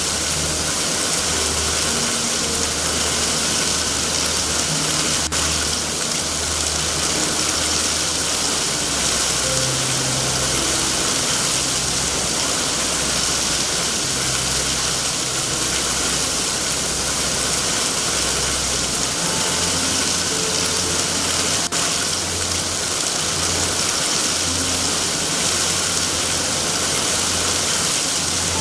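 Steady heavy rain hiss over a low, uneven rumble, with two faint single clicks from the fire.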